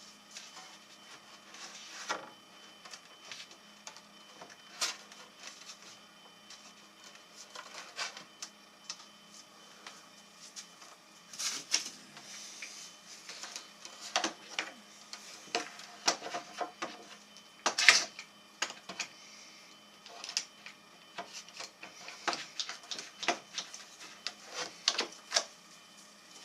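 Irregular clicks and knocks of wooden benchwork legs and clamps being handled and fitted into a frame, with a few louder knocks, the loudest about 18 seconds in.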